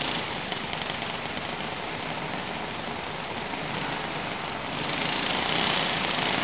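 Small kid kart engines running, a steady buzz that gets louder about five seconds in.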